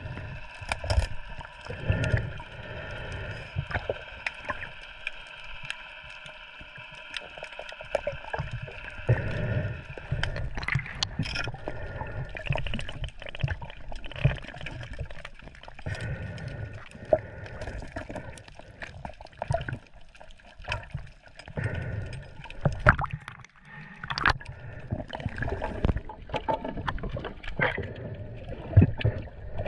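Sea water splashing and gurgling in uneven bursts, with scattered knocks, over a faint steady hum.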